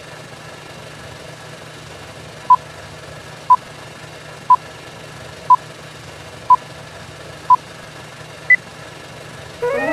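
Film leader countdown beeps: a short beep once a second, six times starting about two and a half seconds in, then a single higher-pitched beep at the count of two, over a steady low hum and hiss. Brass music starts right at the end.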